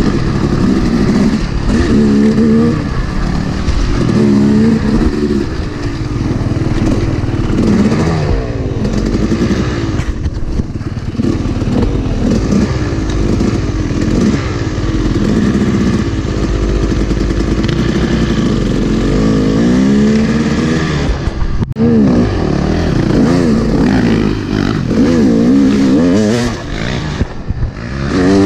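A 2011 Yamaha YZ250 two-stroke dirt bike engine revving up and down continually while ridden along a trail, the pitch rising and falling with each throttle change. There is a momentary break in the sound about three-quarters of the way through.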